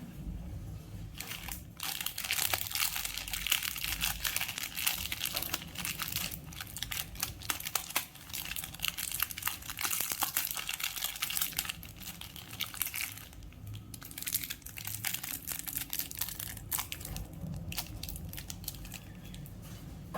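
Plastic candy wrappers crinkling and crackling as candy is unwrapped by hand, in dense bursts of sharp crackles with a brief lull about two-thirds through.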